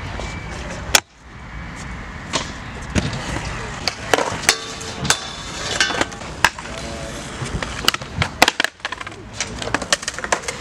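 Stunt scooter and skateboard wheels rolling on concrete, with many sharp clacks and bangs as decks and wheels hit the ground and the obstacles.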